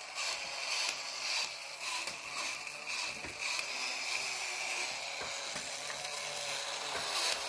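Battery-operated tin clown toy's motor and gear mechanism running as it sweeps, a steady whir with repeated ratchet-like clicks.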